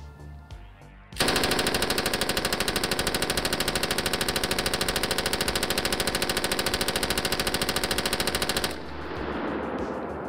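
A belt-fed 5.56 mm light machine gun firing unsuppressed in one long continuous burst of about seven and a half seconds, starting a little over a second in and stopping abruptly. Background music plays underneath.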